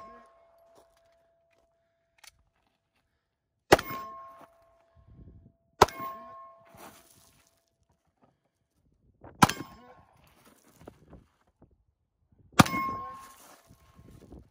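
Four pistol shots a few seconds apart, each followed by a struck steel target ringing with a clear tone that fades over a second or two.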